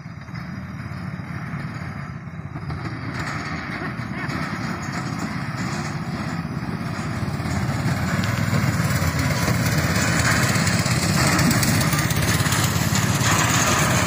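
Small engine of a mini semi-truck go-kart running as it drives up and passes close by, growing steadily louder.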